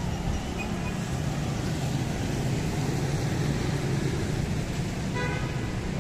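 Street traffic running steadily past with a low engine rumble, and one short vehicle horn beep about five seconds in.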